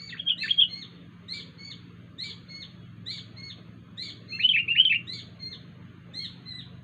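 Wild sooty-headed bulbul calling: short chirped notes repeated about once a second, with two louder bursts of rapid chirps, one right at the start and one about four and a half seconds in. These are the unusual calls of a wild bird.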